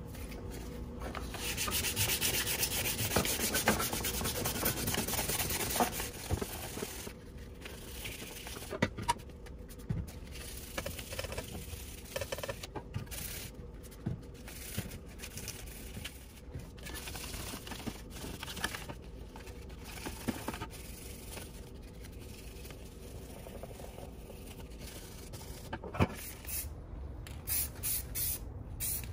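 Primed pressed-steel toy truck body parts being hand-sanded with sandpaper: rubbing strokes, loudest in the first few seconds, then lighter and broken by pauses. Near the end come short hissing bursts from an aerosol paint can.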